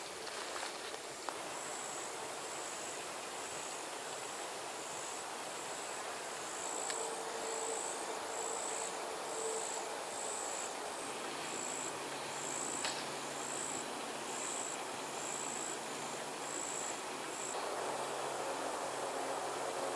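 An insect chirping: short, high-pitched chirps repeated evenly about one and a half times a second, stopping a couple of seconds before the end. A faint low steady hum comes in during the second half.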